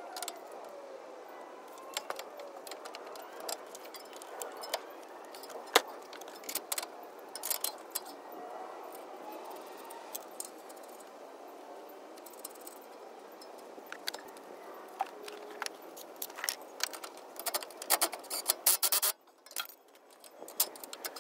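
Metal parts and hand tools clinking and knocking at irregular intervals as a front strut is worked back into its steering knuckle by hand. The sharpest knock comes about six seconds in, with a denser run of clinks near the end.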